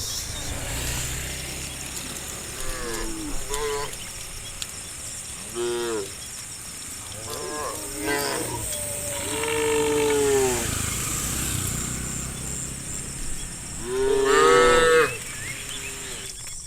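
Cows mooing: a series of calls, a few short ones early, longer drawn-out ones about halfway through, and the loudest one near the end.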